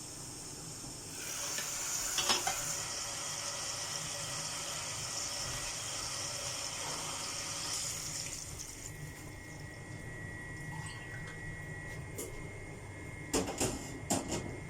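Water running steadily for several seconds, then a few sharp clicks and knocks of kitchenware near the end.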